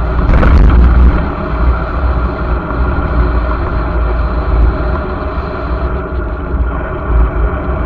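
Wind buffeting the microphone of a bike-mounted camera while riding at speed, a heavy, fluttering rumble over road and tyre noise, with a stronger gust about a second in.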